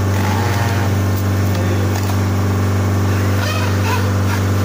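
Ultra-low-temperature LCD freezer separator's refrigeration unit running with a steady low hum, while frozen TV screen layers are being separated on its table. A few faint knocks come from handling the panel near the end.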